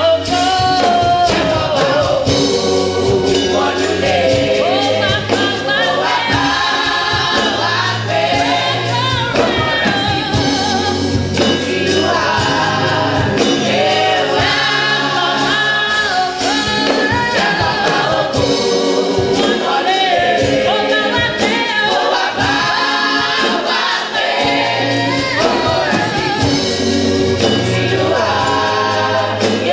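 Youth choir of women singing a gospel song into microphones, amplified through the hall's sound system.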